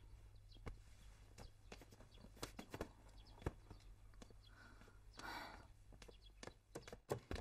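Near silence: faint background tone with scattered faint clicks and knocks.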